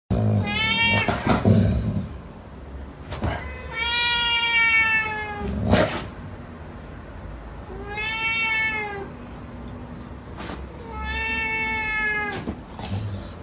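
Domestic cat meowing in four long, drawn-out yowls a few seconds apart, each rising a little and then falling in pitch.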